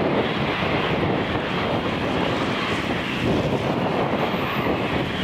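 Turbofan engines of a taxiing Embraer E-Jet regional airliner running at low taxi power: a steady jet noise with no change in level.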